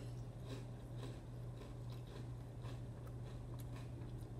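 Someone chewing a mouthful of Reese's Puffs cereal in almond milk, with soft, irregular crunches. A steady low hum runs underneath.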